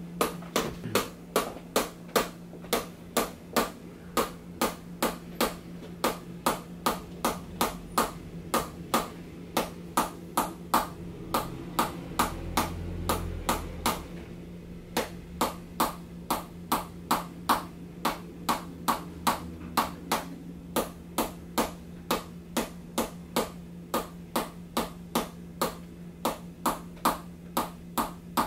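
Chiropractic activator adjusting instrument firing over and over, sharp spring-loaded clicks at about two to three a second, pausing for a couple of seconds about halfway through. A steady low hum runs underneath.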